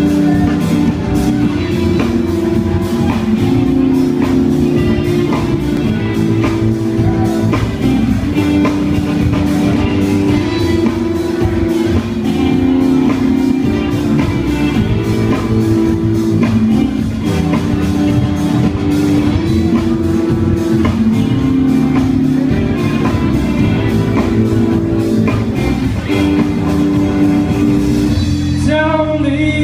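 Live rock band playing an instrumental passage: electric guitar over drums and keyboard with a steady beat, recorded from among the audience. Near the end the drums and cymbals drop out and the music thins.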